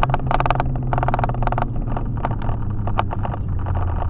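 Car cabin noise while driving in slow highway traffic: steady engine and road hum whose pitch sinks slowly as the car eases off, with one sharp click about three seconds in.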